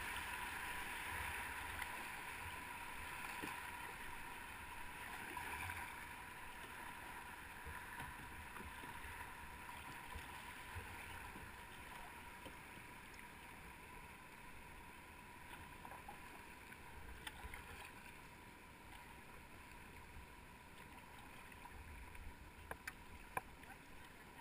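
Rushing water of small river rapids around a paddled canoe, a steady hiss that fades as the canoe moves into calmer water. A few light knocks come near the end.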